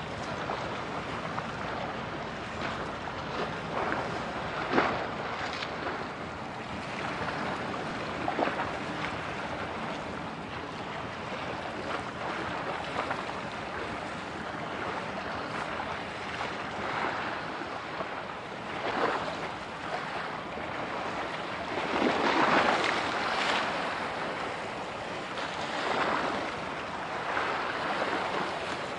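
Wind buffeting the microphone over choppy sea water, a steady rushing that swells in several gusts, the strongest near the last quarter.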